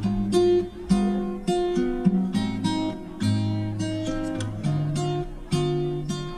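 Background music: acoustic guitar chords strummed in a steady rhythm, about two strums a second.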